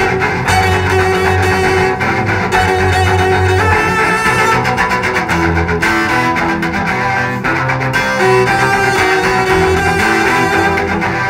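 Four cellos playing an instrumental heavy-metal arrangement, with low bowed notes repeating under sustained higher lines.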